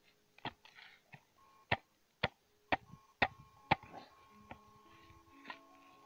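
A hand tool striking into buried wood and scrap in packed dirt: about seven sharp knocks roughly half a second apart, some with a slight metallic ring, then two fainter knocks near the end.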